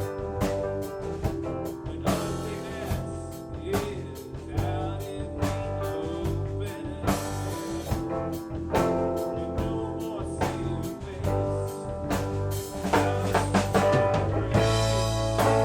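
A band jamming: guitar playing over a drum kit in a bluesy rock groove, getting louder about fourteen seconds in.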